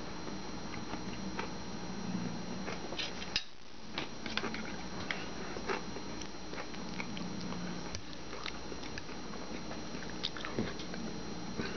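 A person chewing food close to the microphone, with many small clicks and taps scattered through it.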